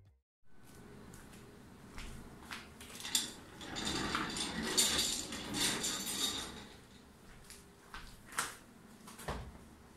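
Household handling sounds: light clicks, knocks and clatter of objects being moved about, with a busier stretch of rustling and clatter in the middle and a dull thump near the end.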